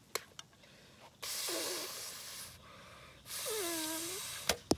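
A person blowing hard twice, two long rushing breaths of a bit over a second each with a wavering whistly tone in them, and a sharp click at the start and another near the end.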